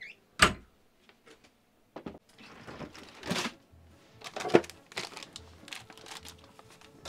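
Kitchen handling sounds in a camper's small kitchen: sharp knocks, the loudest just under half a second in and about four and a half seconds in, with light clicks and rustling in between.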